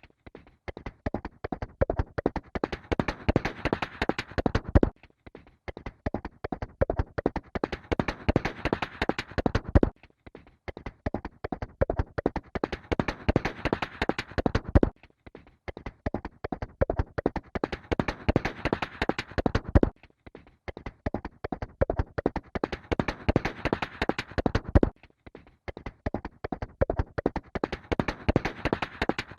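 Horse hooves galloping: a rapid, dense run of hoofbeats. The same few-second stretch repeats about every five seconds, each pass starting fainter, growing louder and then cutting off suddenly.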